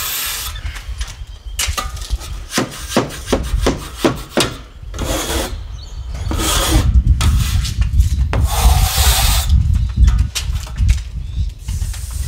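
Steel trowel scraping joint compound along a drywall ceiling butt joint in repeated rasping strokes, quick short ones at first and a few longer sweeps later, over a steady low rumble.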